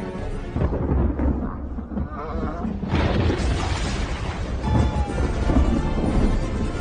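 Film score music with sound effects: a low rumble, then a loud rushing noise that comes in suddenly about three seconds in and carries on.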